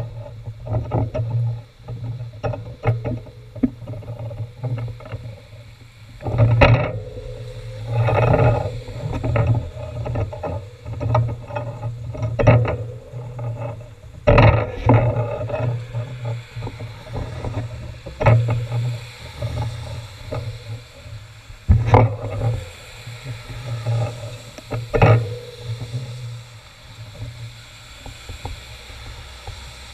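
Road traffic on a wet road: a steady low hum that swells and fades, with several sharp knocks at irregular intervals.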